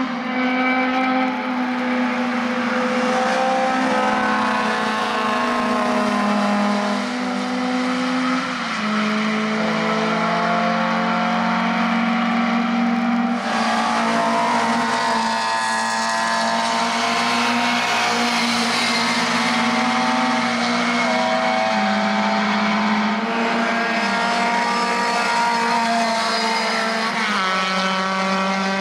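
1300 cc four-cylinder Lada and Samara touring cars racing on a wet track. The engines run at high revs, their pitch climbing through the gears and dropping at each shift several times, over a hiss of tyre spray.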